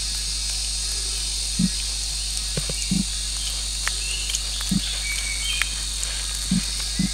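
A steady chorus of insects over a handful of soft, dull thuds at irregular intervals. The thuds come from a wooden stick being pushed into and worked out of a thick slab of wet clay to form holes.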